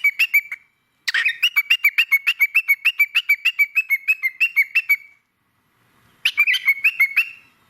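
Cockatiel chirping in fast runs of short, repeated chirps, about seven a second, in three bursts with brief pauses between.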